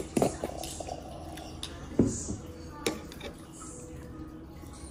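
Chopsticks and a spoon knocking and clicking against a bowl of noodle soup, a few scattered knocks with the loudest about two seconds in.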